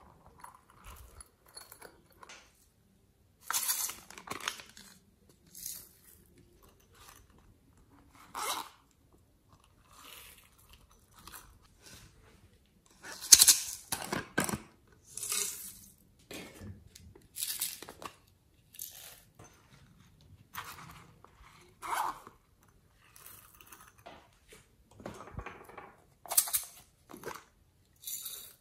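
Handling noise from plastic toys and containers being squeezed and opened, and sprinkles and clay bits being shaken into a glass dish of slime glue. It comes as irregular short rustles and clicks with quiet gaps, the loudest about halfway through.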